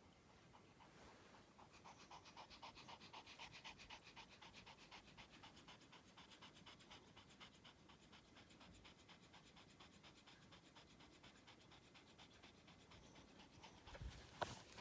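Pomeranian spitz snoring in its sleep with quick, even breaths, several a second, loudest a few seconds in. A short louder noise near the end.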